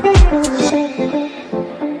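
Background electronic music: a heavy bass drum beat stops shortly after the start, leaving a plucked-sounding melody of short notes.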